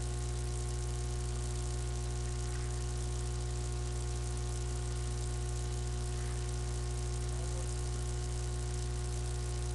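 Steady electrical mains hum with many overtones over a constant hiss, picked up by a webcam microphone.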